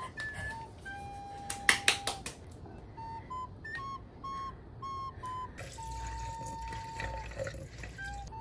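Background music: a simple tune of high, whistle-like notes, some of them held. A few sharp clatters of chopsticks against a pan near two seconds in, and from about six seconds in a tap running as cooked noodles are rinsed under cold water.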